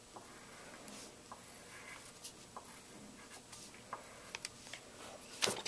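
Colored pencil scratching faintly on paper as a face is drawn, with scattered small ticks of the lead. A sharper click comes near the end.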